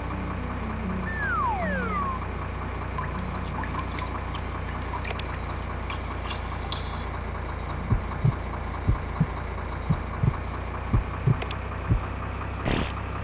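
A steady low engine hum runs throughout. Over it come a falling whistle about a second in, a scatter of light clicks, and then a string of about nine short low thumps near the end.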